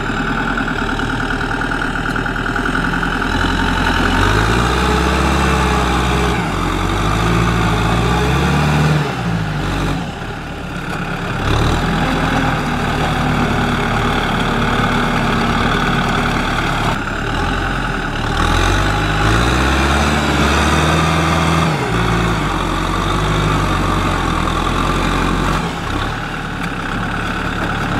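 Kubota M6040SU tractor's diesel engine working under load as it pushes mud with its front blade. The engine note rises and falls twice.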